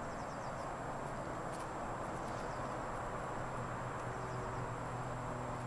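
Steady outdoor background hiss and low hum, with a few faint, short high bird chirps in the first couple of seconds.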